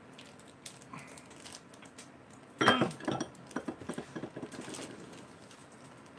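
Light clicks and clatter of oyster shells and chopsticks against dishes, with a short, loud voice-like sound about two and a half seconds in, followed by a quick run of clicks.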